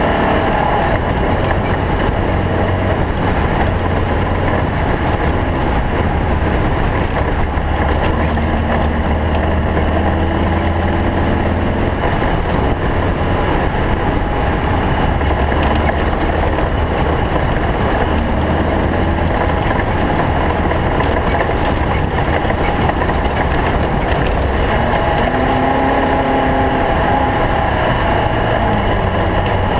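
Stock VW Bug race car's air-cooled flat-four engine running hard and loud without a break, its pitch shifting now and then.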